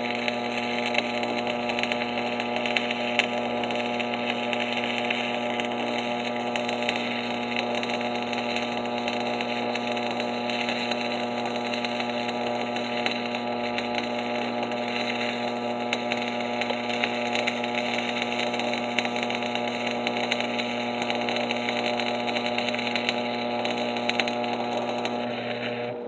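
Stick welding with 7018 rods: a steady crackling, sizzling arc over the hum of a Miller Thunderbolt XL transformer welder. The arc breaks off at the end, leaving the welder's hum.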